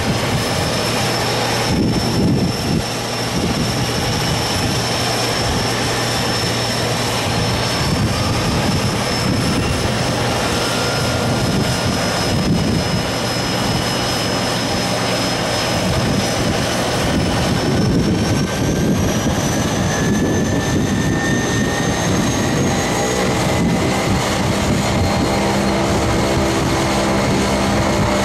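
Jet aircraft engines running loud and steady, with a high whine that slowly rises in pitch through the second half.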